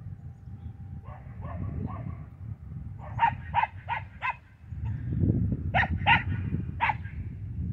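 Young Australian cattle dog/border collie mix barking while herding: a few soft yips, then a run of four sharp barks about three seconds in and three more near the end, over a low rumble.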